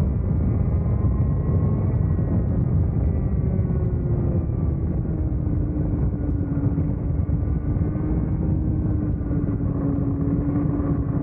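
Vortex Mini ROK 60cc two-stroke kart engine heard onboard, running hard with its pitch sliding gradually down as the kart slows from the straight into the corner, over a heavy low rumble.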